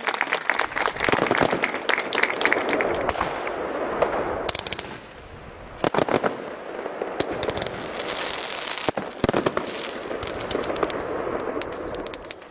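Aerial fireworks going off: several sharp bangs a second or two apart, with crackling and hissing between them. Dense applause-like crackle fills the first three seconds.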